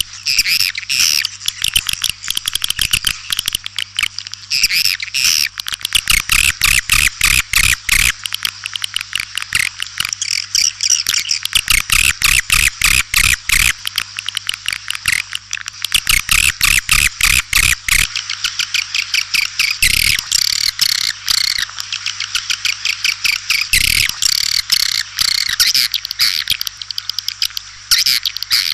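White-nest swiftlets calling: a loud, dense chatter of rapid high chirps and twitters, broken by runs of sharp clicks several times, over a faint steady hum. This is the recorded call sound played to draw swiftlets into a nesting house.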